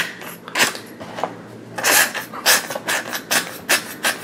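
Small plastic toy figure swished through a glass bowl of ice water: water sloshing and ice cubes knocking against the glass in short repeated strokes, about two a second.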